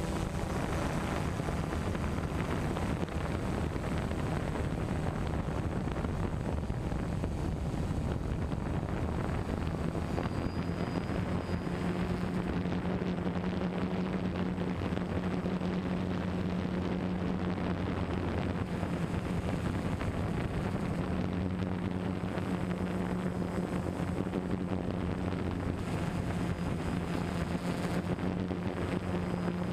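DJI Phantom 1 quadcopter's motors and propellers humming steadily as heard from the camera mounted on the drone, with wind buffeting the microphone. The hum holds one level pitch and grows stronger from about ten seconds in.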